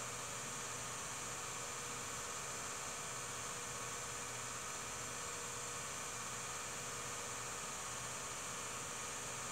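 Steady electrical hum and hiss with no other sound: the background noise of a silent home-movie film transfer.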